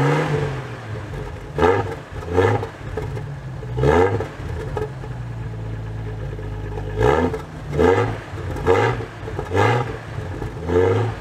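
Jeep Cherokee XJ's stock fuel-injected 4.0 L inline-six, heard at its dual exhaust tips, idling and being blipped: about eight short revs, each rising quickly and dropping back to idle. There is a few seconds' steady idle in the middle, and the revs come in quick succession near the start and again in the second half.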